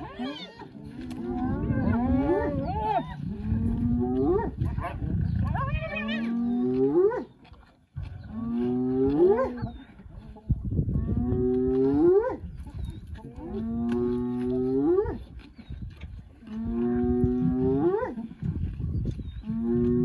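A downed horned prey animal under feeding lions bellowing over and over: each call a held low note that sweeps sharply upward at its end, coming every one and a half to two seconds, with a low rumble beneath.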